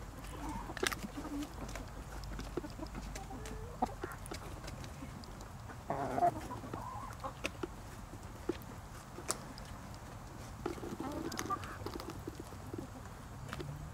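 Backyard hens clucking softly, with a louder burst of clucks about six seconds in, and scattered sharp clicks.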